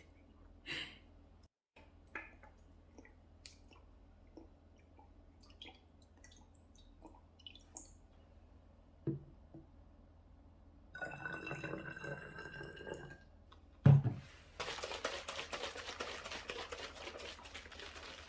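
Small clicks and knocks of things being handled, then a brief hiss with a faint whistle, a knock, and water running steadily from a tap near the end.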